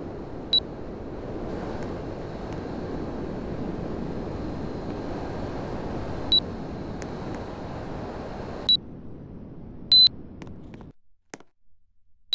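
Air conditioner's fan blowing air steadily, broken by five short high beeps from the unit, typical of it acknowledging remote or button commands. After the beep near nine seconds the airflow drops. After a longer, louder beep the fan cuts out, leaving near silence with a few faint clicks.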